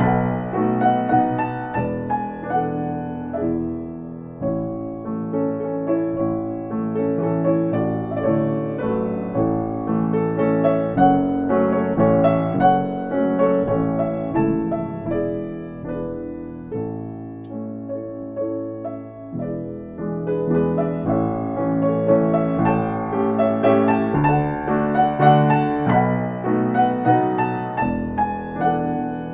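Piano playing a piece of many overlapping notes. The playing eases in loudness around four seconds in and again near twenty seconds, then builds back up.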